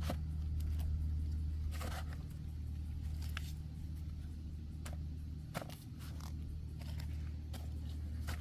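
A low, steady engine hum, dipping briefly about five and a half seconds in, with scattered light clicks and knocks.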